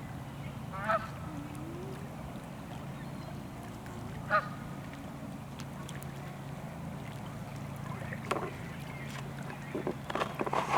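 Geese honking: two single honks a few seconds apart, then several calls in quick succession near the end, over a steady low hum.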